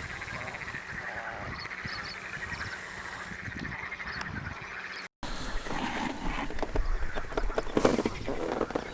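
A steady chorus of animal calls carrying across the water. About five seconds in, the sound cuts off abruptly and is followed by a run of close knocks and clicks.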